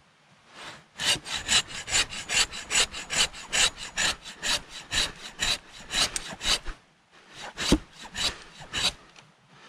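Hand saw cutting through wood in quick back-and-forth strokes, about three a second. The sawing stops briefly about seven seconds in, then a few more strokes follow before it stops.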